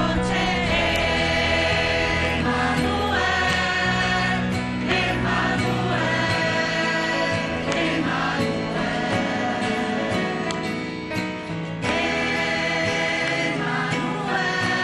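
Choral music: a choir singing over long held low notes.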